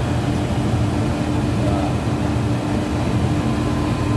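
Plastic-processing workshop machinery running with a loud, steady hum and a constant drone.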